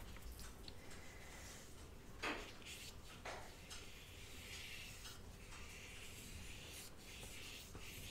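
Watercolour brush rubbing faintly on paper as red paint is stroked on in streaks, with a couple of soft taps about two and three seconds in.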